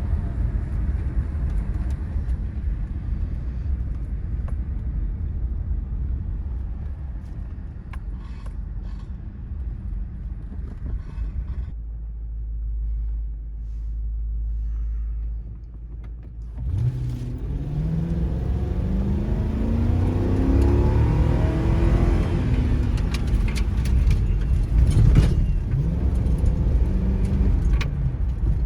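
Ford Crown Victoria's V8 engine and the car on the move: first a steady road rumble, then after a short quieter hum the engine pulls away, its pitch rising several times as it accelerates through the gears.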